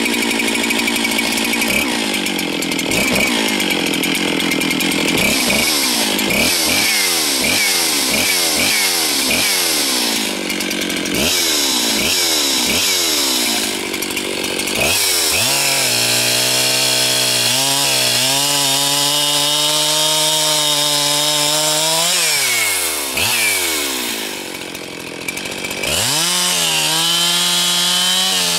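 Husqvarna 365 two-stroke chainsaw running, its throttle blipped over and over so the engine pitch repeatedly drops and climbs again. About halfway through it is held at steady high speed, falls off near the end, then revs back up.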